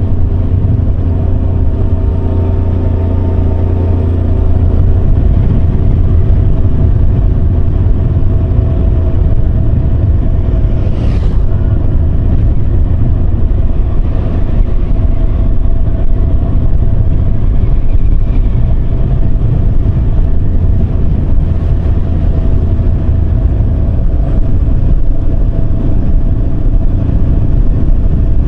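Yamaha Serow 250's single-cylinder four-stroke engine running steadily while riding, loud and continuous with road noise.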